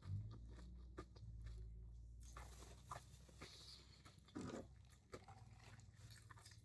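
Faint close-up chewing and mouth sounds of someone eating a sandwich, with a few soft clicks and a slightly louder smack about four seconds in.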